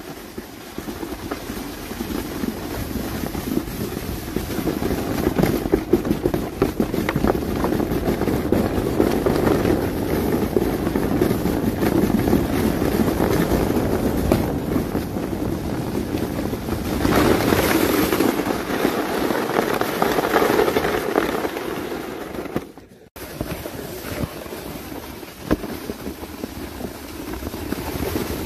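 Wind buffeting the phone's microphone: a loud, rough, steady rush that swells and eases, breaking off briefly at a cut about 23 seconds in and then carrying on.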